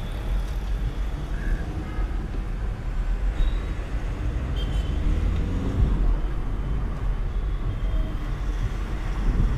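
Volkswagen Vento 1.6 TDI diesel under way, heard from inside the cabin: a steady low rumble of engine and road noise.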